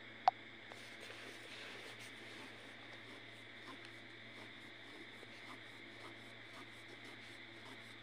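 Ballpoint pen drawing on paper, faint scratching strokes with small ticks, and one sharp click about a third of a second in.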